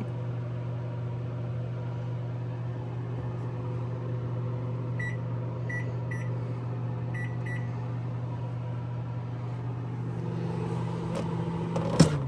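Microwave oven humming and buzzing steadily while merely plugged in, the unwanted noise that is the fault here. Five short keypad beeps sound in the middle, and near the end a sharp click comes and the hum begins to wind down.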